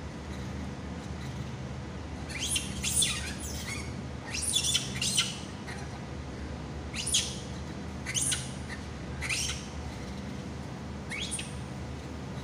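Short, sharp, high-pitched squeaky calls, each dropping quickly in pitch. They come in quick clusters a couple of seconds in and again around four to five seconds, then singly about once a second, over a steady low hum.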